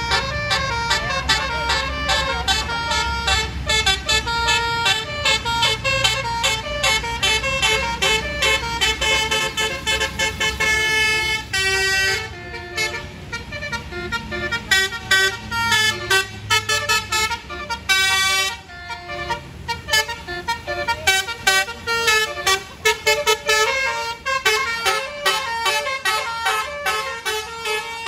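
A bus's basuri musical air horn (telolet horn) playing a fast melody of many short, quickly changing notes, over a low engine rumble that is strongest in the first half.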